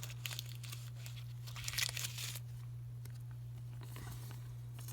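Trading cards and their crinkly pack wrappers being handled: faint rustling with a few small clicks, and a louder crackle about two seconds in, over a steady low hum.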